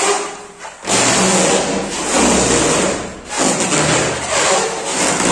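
Large latex balloon squeaking and rubbing as it is squeezed under a sitter's weight and hands. The sound is loud and comes in long stretches with short breaks between them.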